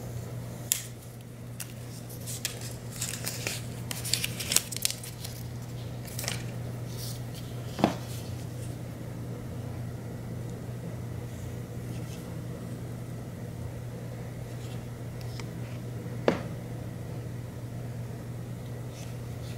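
Thin plastic protective film crinkling and crackling as it is peeled off an Apple Watch, then a few sharp clicks as the watch and its metal buckle are handled, over a steady low hum.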